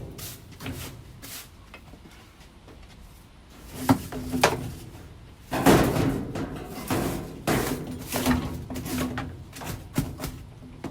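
Irregular knocks, bumps and clatter of hands working on a washer and dryer, with short scraping sounds between; the loudest knocks come about halfway through.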